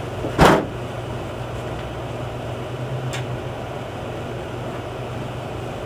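A single loud thump about half a second in, then a steady low room hum with one faint click around three seconds in.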